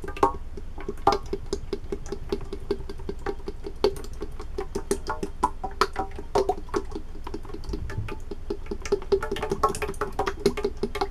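Thick dish soap draining from an upside-down plastic squeeze bottle into a pot, with a steady run of small irregular clicks and pops as air works back into the bottle and the bottle is squeezed and shaken.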